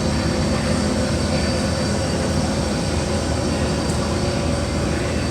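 Steady rumbling background noise inside a large store, with a constant hum running through it.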